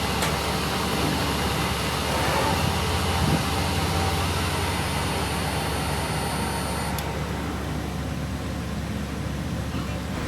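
Workshop machinery running steadily with a constant hum and a high whine that stops about seven seconds in.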